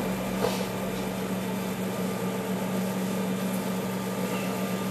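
CAMaster CNC router's Z-axis drive raising the router during the initialize (homing) cycle: a steady machine hum, with one short click about half a second in.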